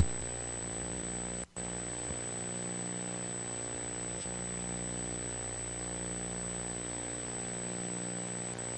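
Steady electrical buzzing hum with a thin high-pitched whine over it, cutting out for an instant about a second and a half in.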